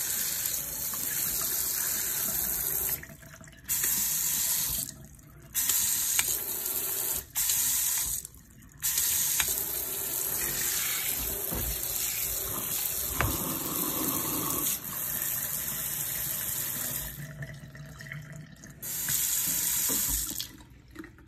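Water from a pull-down kitchen faucet's spray head running steadily into a sink basin, cutting out briefly three times. Near the end it runs as a plain stream from the spout, then stops.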